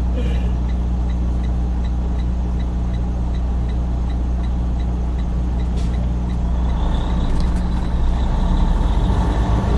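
Semi truck's diesel engine idling steadily, heard from inside the cab, with a light ticking about three times a second that stops about six seconds in. Near the end the engine grows a little louder.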